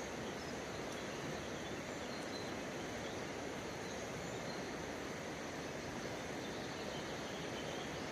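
Steady rush of flowing river water, an even hiss without change, with a few faint high chirps now and then.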